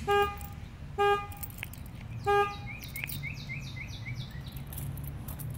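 Truck horn sounding in short, identical honks, three times about a second apart, as its alarm goes off. A run of short rising chirps follows about three seconds in.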